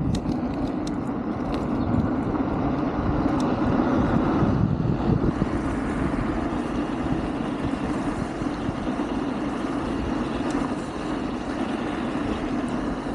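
Wind rushing over the microphone and tyre noise while riding a Wolf King GT Pro electric scooter, a steady low rumble with no engine note.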